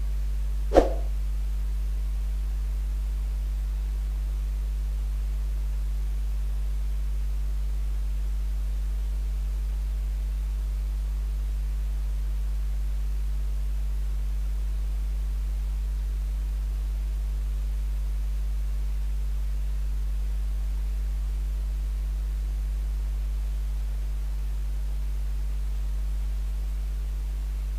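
Steady low electrical hum, like mains hum in the recording chain, with a single sharp click about a second in.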